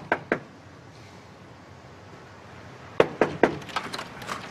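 Knocking on a house's front door: three quick knocks at the start, then three more about three seconds in, followed by a few lighter clicks.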